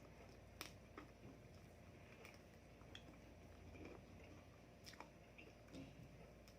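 Faint chewing and a few small mouth clicks from a person eating, against near silence.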